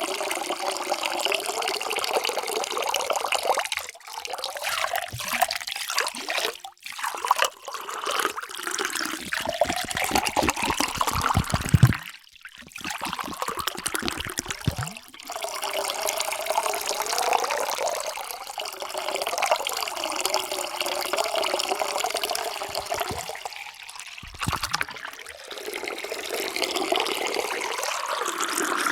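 Water pouring into a container, splashing with a wavering hollow ring from the vessel. It comes as several pours broken by short pauses.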